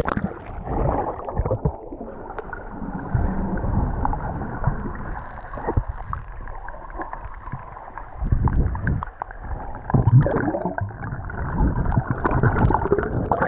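Muffled water churning and bubbling heard through a submerged GoPro, with irregular low thumps and swells of movement in the water.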